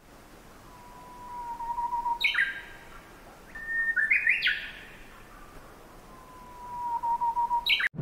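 Nightingale singing: a single whistled note that swells in loudness, then quick runs of higher notes stepping downward, then the swelling whistle again, over a faint hiss.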